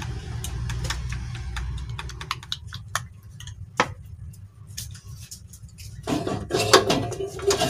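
Chopsticks clicking against a small cup as two eggs are beaten. The taps come rapidly for about two seconds, then thin out to scattered taps. About six seconds in comes a louder clatter of cookware as a small frying pan is taken down.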